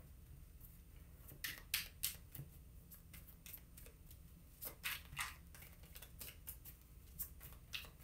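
Tarot cards being shuffled by hand: faint, irregular flicks and snaps of card edges, coming in small clusters.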